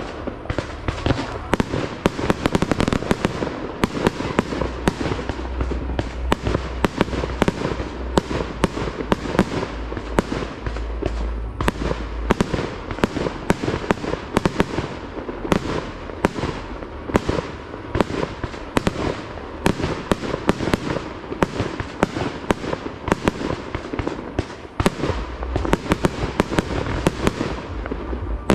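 Aerial fireworks display: a continuous barrage of shell launches and bursts, several sharp bangs a second over a deep rumble.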